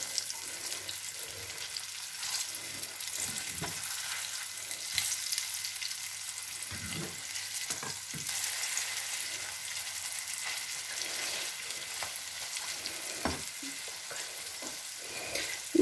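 Syrniki (cottage-cheese pancakes) sizzling in hot oil in a frying pan, a steady high hiss. A few short knocks and scrapes come from a plastic spatula as the pancakes are turned over.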